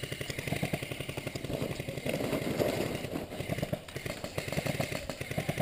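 Airsoft electric rifle (AEG) firing on full auto, a rapid, even stream of shots with the gearbox cycling, easing off briefly twice.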